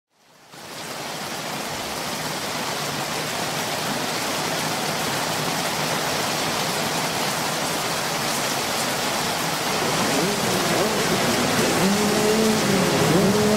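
Steady heavy rain falling, an even hiss that fades in over the first second. A faint wavering pitched hum joins it near the end.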